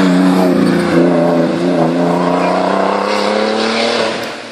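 Audi A4 hillclimb race car's engine running loud at high revs as the car passes close by at speed, then fading as it pulls away up the hill near the end.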